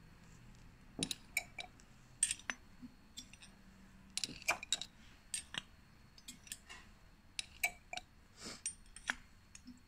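Irregular light clicks and clinks of laboratory glassware being handled while ethanol is added to a test tube, some with a brief high glassy ring.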